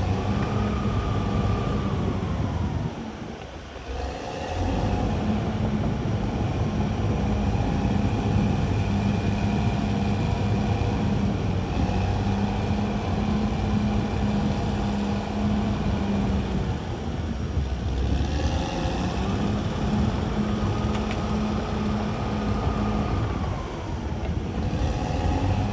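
CAT D6R XL crawler bulldozer's diesel engine running steadily under load, easing off briefly about three seconds in. A higher whine rises and falls twice over it, near the start and again past the middle.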